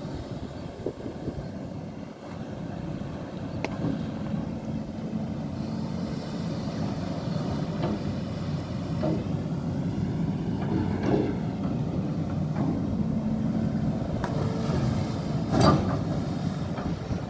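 Amphibious excavator's diesel engine running steadily as the machine comes in, growing somewhat louder. There is a sharp knock near the end.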